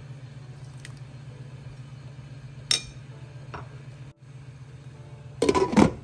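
A few sharp clinks and knocks of a plate and a stainless-steel pot being handled, the loudest cluster near the end, as a knotted lemongrass bundle goes into the rice-water broth. A steady low hum runs underneath.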